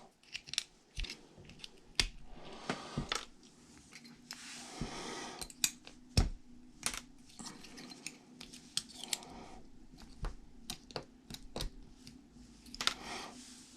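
Small ball bearings being worked out of an old plastic RC steering rack: scattered light clicks and taps of metal on plastic, with a few short stretches of soft scraping and rustling.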